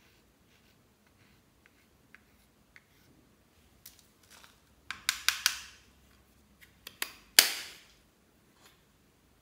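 Faint scraping ticks of a plastic spatula digging eyeshadow out of a compact palette, then sharp plastic clicks and taps as the compact and spatula are handled over a glass dish. There are three quick taps about five seconds in, and another run two seconds later ending in the loudest click.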